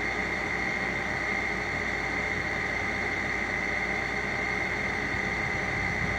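Steady background hiss with a constant high-pitched whine and a low hum, unchanging throughout.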